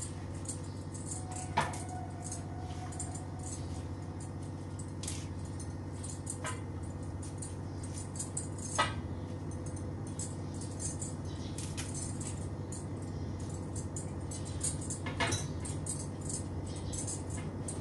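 Kitchen utensils and dishes being handled: sparse clinks and clicks, the sharpest about a second and a half in and near the middle, over a steady low hum.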